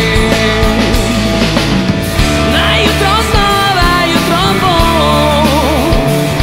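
Rock band with guitars playing a loud, grunge-tinged rock passage over a steady low bass. From about halfway a lead melody bends and wavers in pitch above the band.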